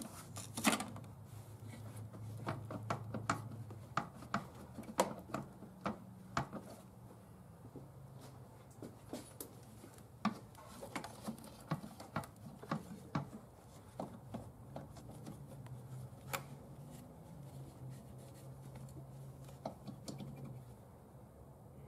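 Irregular clicks, knocks and rattles of hands working loose the Jeep 3.6 Pentastar's composite upper intake manifold and the parts around it. Underneath is a low, steady hum that stops near the end.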